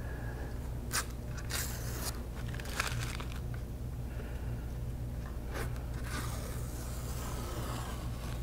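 A hand pressing and rubbing a small piece of paper against a painted illustration board: several short scrapes and crinkles, then a longer rubbing near the end, over a steady low hum.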